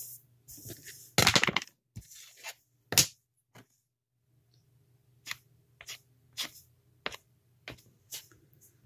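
Small clay-sculpting tools handled on a work board. A brief rustle comes about a second in, a sharp click near three seconds, then light taps and clicks about every half second through the second half.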